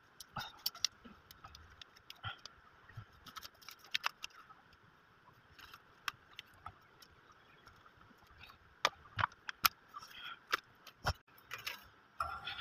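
Small, sharp clicks and taps of things being handled at close range, scattered irregularly, with a louder cluster about nine to ten seconds in.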